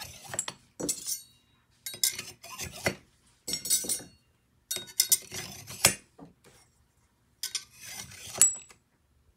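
Stainless steel steak knives slid one after another into the slots of a knife block, each giving a short metallic scrape and clink, in a string of bursts every second or two.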